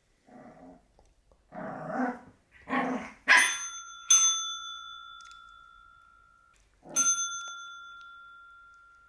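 Black Shih Tzu puppy giving three short barks, then a dog-training call bell dinging as the puppy strikes it: twice in quick succession about three seconds in and once more near the end, each ring fading slowly.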